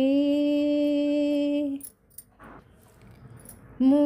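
A woman sings a Telugu devotional harathi song solo, holding one long steady note that ends about two seconds in. After a short pause she starts the next sung line near the end.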